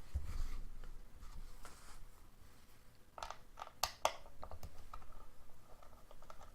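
Handling noise from a plastic digital multimeter: a low rumble of it being moved about, then from about halfway a run of small sharp plastic clicks and taps.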